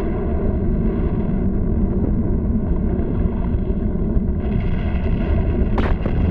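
Steady low rumble of an erupting volcano, a cartoon sound effect, with a short sharp crack near the end.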